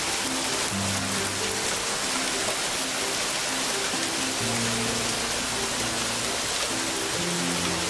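Hail pelting pavement and a yard: a dense, steady hiss of countless small impacts. Soft background music with held low notes plays underneath.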